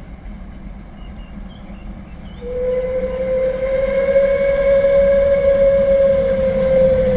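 Steam locomotive 01 1104 sounding one long, steady whistle blast that starts about two and a half seconds in, as the approaching train comes into view.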